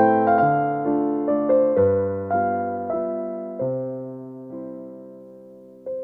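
Background piano music: a gentle melody of struck notes that slows, lets a chord fade away for a couple of seconds, then picks up again with new notes near the end.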